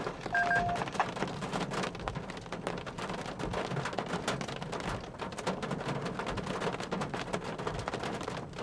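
Steady rain, heard as a dense crackle of drops close to the microphone. A short electronic beep of two tones sounds about half a second in.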